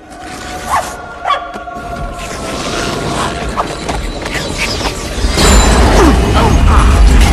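Animated-film soundtrack: music with sound effects, two short sharp accents in the first second and a half, swelling into a loud, heavy low rumble from about five seconds in.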